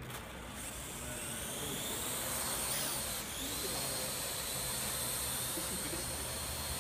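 Parrot AR.Drone quadcopter's electric motors and propellers spinning up as it lifts off, a high whine that starts about half a second in. The pitch rises and dips briefly about three seconds in as the drone manoeuvres, then holds steady.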